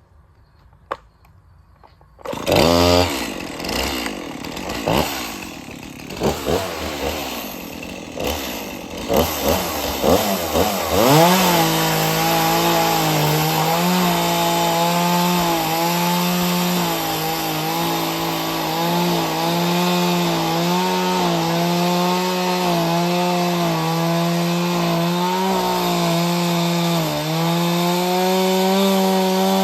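Chainsaw on a chainsaw mill starting up about two seconds in and revved unevenly a few times. From about eleven seconds it settles into a steady full-throttle rip cut through a log, its pitch dipping briefly under load now and then.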